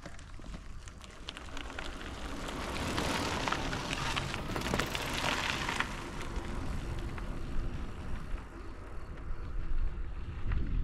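Bicycle tyres rolling fast on a rough track with a crackling, gritty tyre noise over a low wind rumble on the microphone. The rolling noise swells through the middle and eases off near the end.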